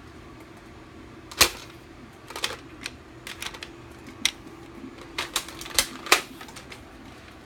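Sharp clicks and snaps from a yellow hand-held bug gun being fired and worked: one loud snap about one and a half seconds in, then an irregular run of smaller clicks with a few louder snaps near the end.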